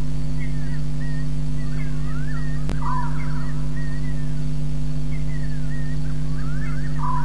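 Steady low hum from a waterhole webcam's audio feed, with repeated short chirps and rising whistled calls of night-calling animals over it, and one sharp click about two and a half seconds in.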